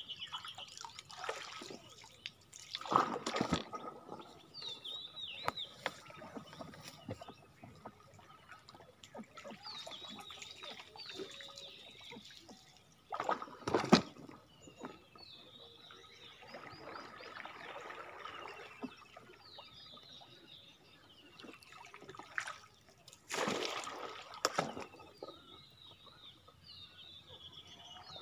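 Floodwater splashing and sloshing as a bamboo pole pushes a banana-trunk raft along, with three louder splashy strokes about ten seconds apart. Birds chirp over it throughout.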